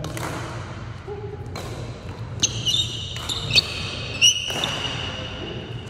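Badminton rally: rackets strike the shuttlecock with sharp cracks, several times. Athletic shoes squeak on the hardwood gym floor, in a run of short high squeaks from about two and a half to four and a half seconds in.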